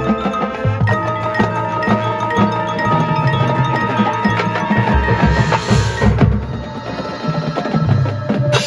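Marching band field show music led by the front ensemble's mallet percussion, bell-like struck notes over low drum hits, with a rising swell that peaks and cuts off about six seconds in.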